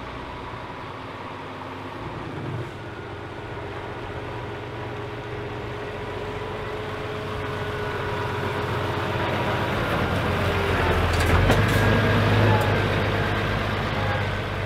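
Scania tractor unit's diesel engine running at low speed as the truck drives slowly up and past, growing louder to a peak about eleven to twelve seconds in, then easing off as it moves away.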